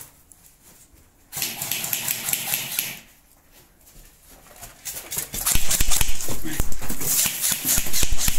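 Airsoft electric guns firing rapid bursts: a fast run of sharp clicks. A first burst comes about a second and a half in, and a longer stretch of firing starts at about five seconds.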